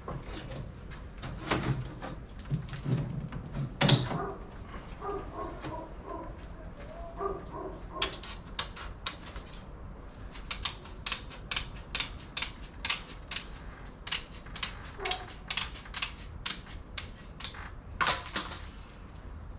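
Wire mesh being handled and cut with snips: a run of sharp metallic clicks and snips, about two a second through the second half, loudest near the end. A few short high whines come in the middle.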